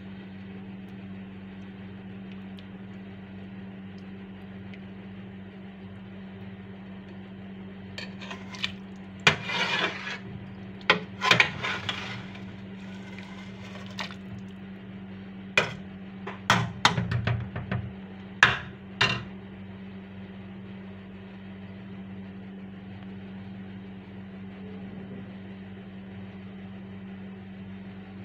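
Metal spoon clinking and scraping against a steel cooking pot while stirring beetroot pieces in their cooking liquid, a run of sharp strokes lasting about ten seconds in the middle. A steady low hum underlies it throughout.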